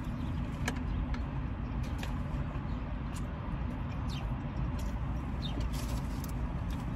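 Chewing and lip-smacking from people eating burritos: scattered short, wet clicks over a steady low rumble.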